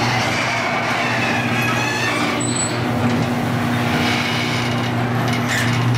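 Electric garage door opener running while the overhead door rises: a steady motor hum with the rattle of the door moving.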